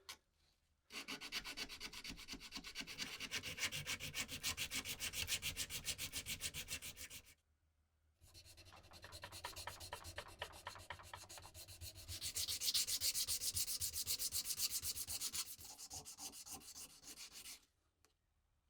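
Hand sanding with rapid, even back-and-forth strokes, in two long runs broken by a pause of about a second near the middle.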